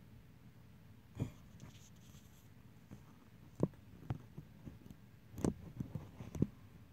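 A scattered series of light clicks, knocks and scrapes, about eight in all, of a phone handled against a plastic reptile tub.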